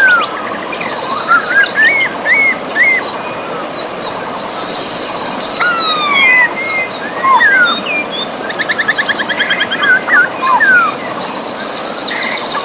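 Several birds singing over the steady rush of river water: short whistled notes sliding up and down, a run of falling whistles about six seconds in, and fast trills a little later.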